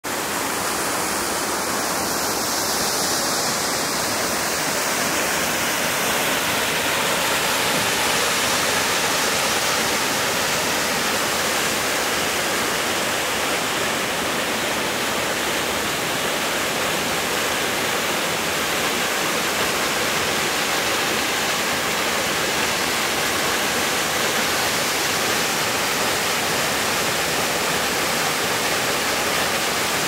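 Small mountain waterfall and its rocky creek rushing steadily: an even, unbroken sound of falling and tumbling water.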